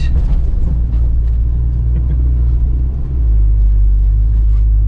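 UAZ Patriot driving: a steady low engine and road rumble, getting a little louder about three seconds in.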